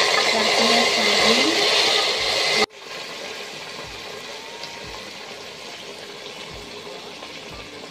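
Hot ghee and fried cashew nuts poured into the pot of coconut-milk payasam, sizzling loudly. The sizzle cuts off suddenly about two and a half seconds in, leaving a quieter steady hiss.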